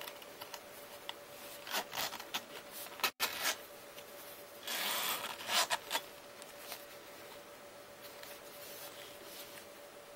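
Cotton-gloved hands handling a bridle-leather zip wallet: rubbing and scraping on the leather and brass zipper edge, with scattered small clicks and a short rasp about five seconds in.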